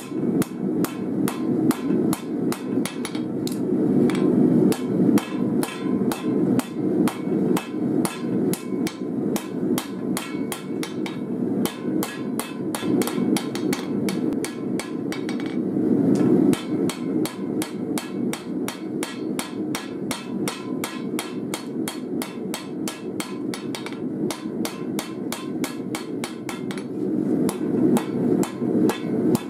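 Hand hammer striking a hot knife blade forged from an old steel file on an anvil, in rapid, even blows several times a second with a few short breaks. A steady low roar runs underneath.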